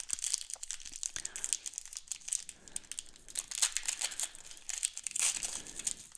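Plastic wrapper of a Score football trading card pack crinkling and tearing as it is pulled open by hand: a run of short crackles with a few louder bursts.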